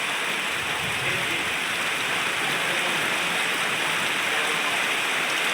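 Steady rainfall, an even hiss of many drops with no breaks or single loud events.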